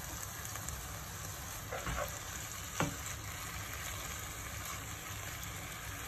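Sliced beef sizzling in a frying pan, in its juices with fish sauce and pla ra added, as it is stir-fried with a wooden spatula until cooked. Two light knocks come about two and three seconds in.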